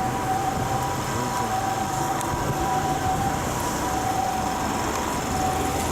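Two-tone emergency vehicle siren sounding steadily at a distance over constant street and traffic noise with a low rumble.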